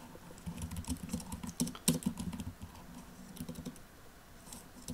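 Typing on a computer keyboard: irregular key clicks, a few at a time with short gaps between them.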